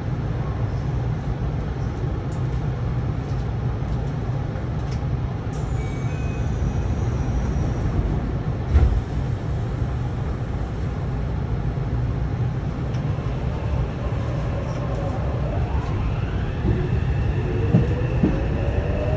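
Yokohama Municipal Subway Blue Line train running, heard from the gangway between cars: a steady low rumble of wheels on rail, with a single knock about halfway through. Near the end a whine rises in pitch.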